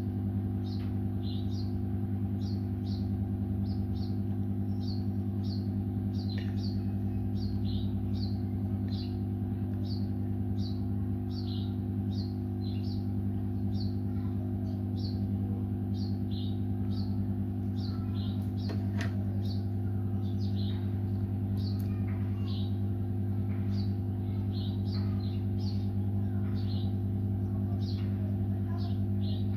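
Steady low electrical hum, with a small bird chirping over and over in the background: a short falling chirp about three times every two seconds. Two faint clicks fall near the middle.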